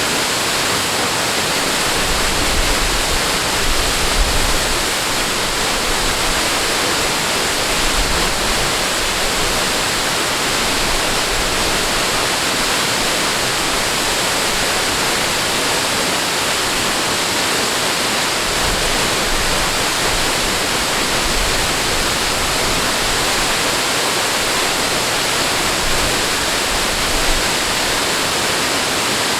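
Steady rushing water, an even hiss with no let-up, with a few brief low rumbles underneath.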